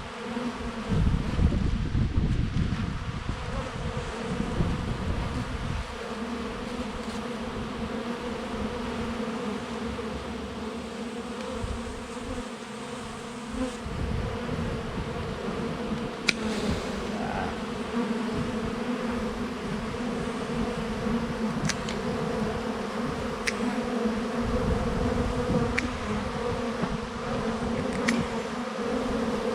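A swarm of honey bees buzzing in a steady hum. A low wind rumble sits on the microphone for the first few seconds, and a few faint clicks come later on.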